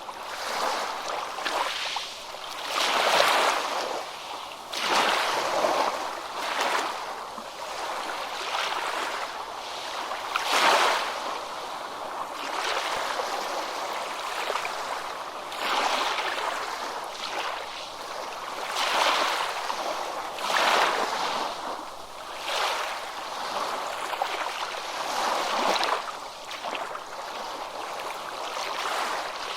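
Ocean waves breaking and washing up on a beach, the surf swelling and falling away in irregular surges every few seconds. It is mostly a hiss of foam and spray, with little deep rumble.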